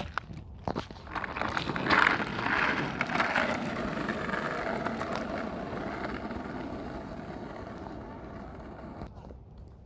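A vehicle passes close by: its noise swells to a peak about two seconds in, then fades away slowly over the next several seconds. A few light knocks come just before it.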